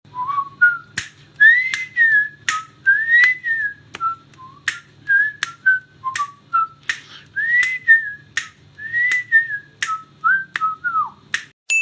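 A cheerful whistled tune of short gliding notes, with sharp clicks keeping time about twice a second; it stops just before the end.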